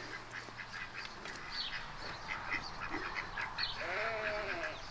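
Ducks quacking in short, scattered calls, with one longer call about four seconds in.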